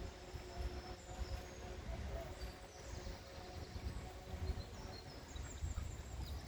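Outdoor waterside ambience: a low, uneven rumble on the microphone, with faint high bird chirps scattered through.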